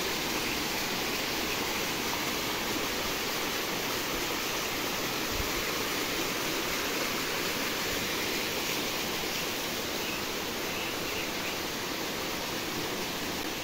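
Small waterfall cascading over rocks into a mountain stream: a steady rush of falling water, easing slightly near the end.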